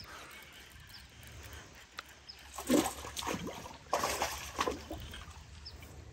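A hooked bass thrashing and splashing at the water's surface while it is reeled in, several sharp splashes between about two and a half and five seconds in.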